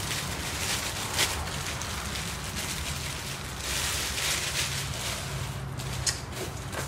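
Clear plastic packaging bag crinkling and rustling as a new spinning reel is handled and unwrapped from its cardboard box, in uneven crackly spurts, strongest around a second in, near the middle, and about six seconds in.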